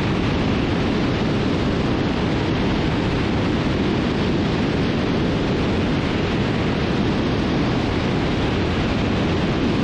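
Steady, even noise of a Cessna T310R in cruise flight, wind and engine sound blended into one hiss-like drone with no distinct engine tone.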